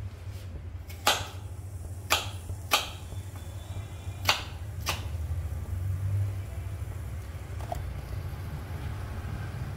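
Onion chunks dropped one at a time into a nonstick frying pan with a little oil, each landing with a sharp tap: about five taps in the first five seconds and a faint one later, over a low steady hum.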